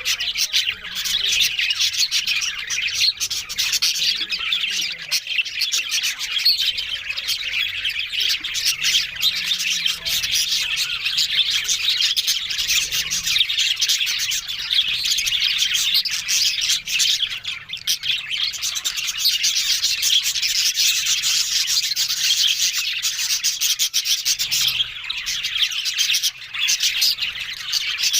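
Budgerigars chattering and warbling without pause, a dense mass of fast, high twittering.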